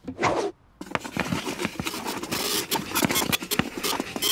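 Chalk scribbling and scratching fast across a blackboard, a dense scratchy run starting about a second in.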